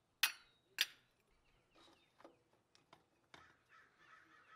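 Two sharp metallic clicks within the first second, then faint scattered clicks and handling sounds as a Toyota 22RE throttle body is worked loose by hand from the intake manifold. A faint rasping sound comes in near the end.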